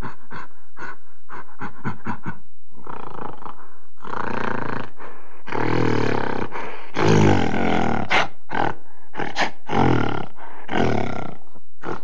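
Gorilla calling: a quick run of short calls, then longer, louder calls from about four seconds in, the loudest around the middle.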